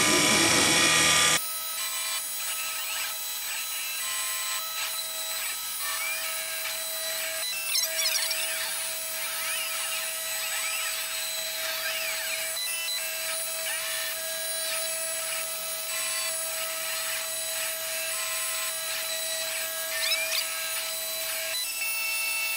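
CNC-converted Sieg mini mill cutting aluminium with a 1/8-inch carbide ball end mill: a steady running tone with motor whines that glide up and down in pitch as the axes trace curves. Louder for the first second and a half, then settling to an even level.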